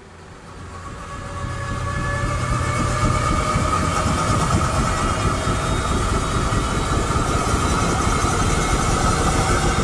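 Sound effect of a machine starting up and running: a low mechanical rumble with a whirring hum that swells over the first two seconds and then runs steadily, standing for the cartoon time machine being tested.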